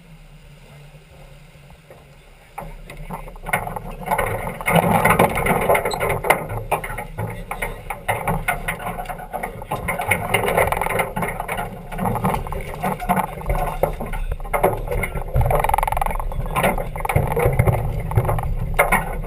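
Rushing wind and water noise of a Farr 40 racing yacht under sail, picked up by a deck-mounted camera's microphone; it comes up abruptly about two and a half seconds in and stays loud and gusty.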